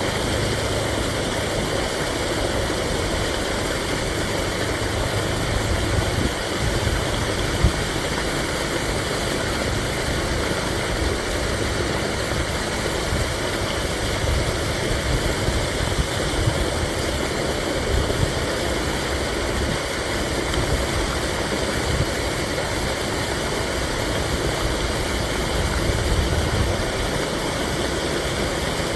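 Storm-rain water pouring steadily from a stormwater drain outlet into a creek, a constant rushing with a low rumble underneath.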